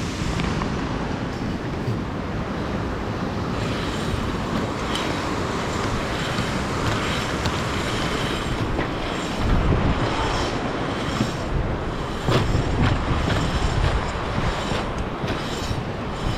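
Zipline trolley pulleys running along the steel cable, a steady rolling rumble mixed with wind on the microphone, swelling louder about two-thirds of the way through, with scattered clicks near the end.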